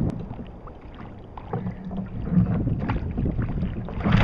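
Wind buffeting the microphone over a low rumble, with small water slaps and splashes against the plastic hull of a fishing kayak at sea, and a louder rush of splashing near the end.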